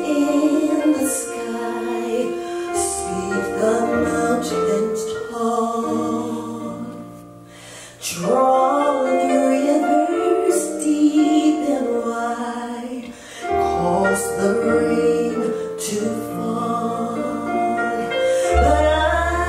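A woman singing a gospel song into a microphone, over sustained low instrumental notes. The music thins and fades briefly about seven seconds in, then the voice comes back strongly.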